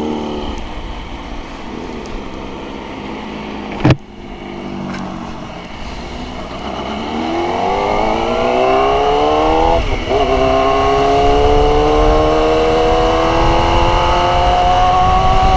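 Yamaha YZF-R6 inline-four engine pulling away and accelerating, its revs climbing, dipping at a gear change about ten seconds in, then climbing again. Wind rumble on the microphone builds with speed, and a single sharp knock comes about four seconds in.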